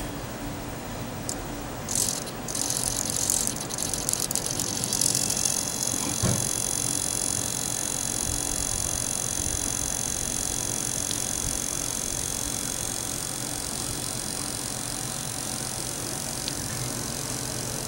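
Align T-Rex 250 electric RC helicopter running, with a steady high-pitched buzzing that the owner attributes to the cyclic servos buzzing at full throttle. Irregular rattly bursts in the first few seconds give way to the steady buzz.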